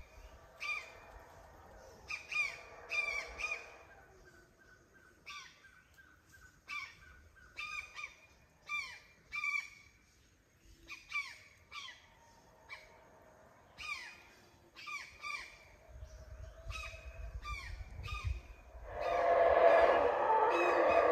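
A bird gives short, falling calls over and over, with a faint low howling underneath in the first few seconds. About nineteen seconds in, howler monkeys start roaring loudly from the treetops overhead.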